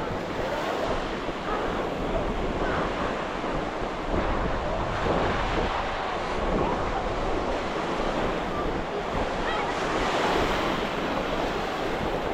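Surf washing onto a sandy beach, with wind buffeting the microphone.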